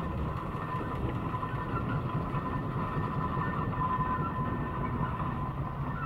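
A steam engine running as it passes, a steady low rumble with a faint steady whine above it.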